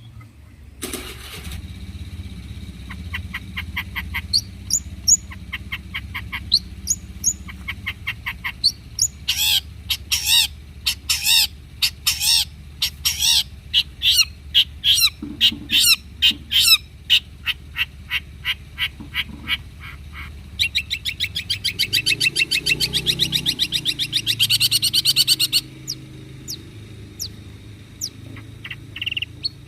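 Long-tailed shrike (cendet) singing a varied song of sharp chirps and whistled notes in quick runs, with a fast trill of rapidly repeated notes lasting about four seconds past the middle. A steady low hum runs underneath.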